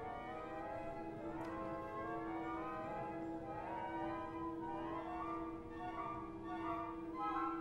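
Orchestra playing, bowed strings to the fore, with one note held steady from about a second in beneath shifting chords above.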